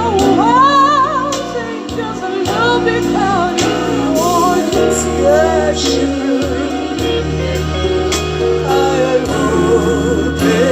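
A woman singing long, wavering notes with vibrato into a microphone, amplified through a PA speaker over instrumental backing with steady bass notes.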